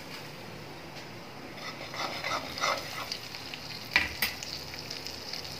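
Turmeric and sabzi masala powder frying in a little hot oil in a metal kadhai, a steady sizzle, with a few faint clicks and one sharper knock about four seconds in.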